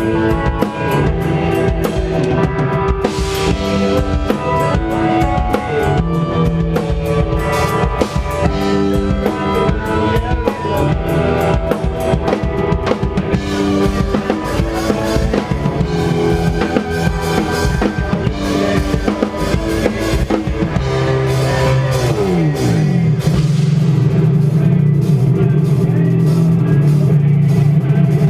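Live post-hardcore band playing loud: full drum kit with bass drum and snare under distorted guitars and bass. About two-thirds of the way through, the drums drop away and the guitars slide down in pitch into a held, ringing low chord.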